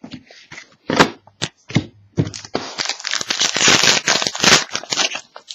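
Trading card pack wrapper being torn open and crinkled by hand: a few sharp clicks, then about three seconds of steady tearing and crackling.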